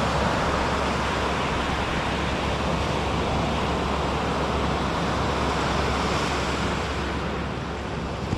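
Baltic Sea surf: waves of about a metre breaking and washing up the beach in a steady rush, with wind, easing slightly near the end.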